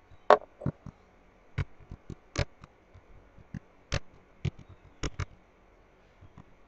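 Typing on a computer keyboard: about a dozen sharp, irregular keystroke clicks with short uneven pauses between them, over a faint steady hum.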